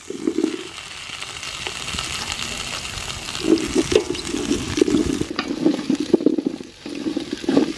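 Chunks of papaya, carrot and potato sizzling in hot oil and garlic in a large stainless steel pot, then stirred with a wooden ladle from about three seconds in, the pieces knocking and scraping against the pot.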